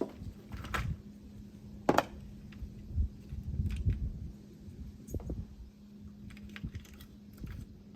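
Handling noises: scattered light clicks and knocks, one sharper knock about two seconds in, over a steady low hum.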